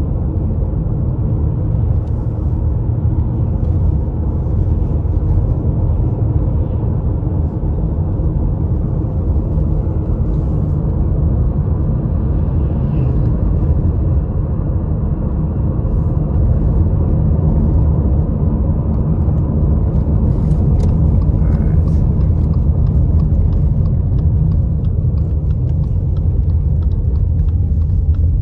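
Steady low rumble of a car's engine and tyres heard from inside the cabin while driving on a paved road.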